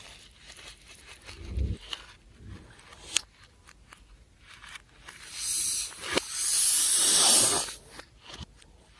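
Handling noises from slime-making materials: scattered soft taps and a sharp click about three seconds in, then two longer stretches of rustling, crinkling noise, the second one louder.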